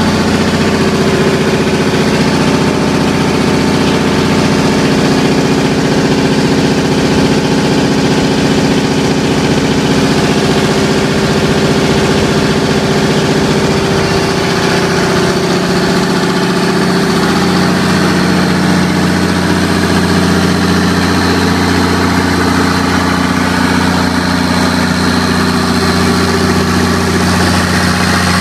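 Onan 350DFCC diesel generator set running steadily, a loud constant engine drone. The low notes change about halfway through and then hold steady.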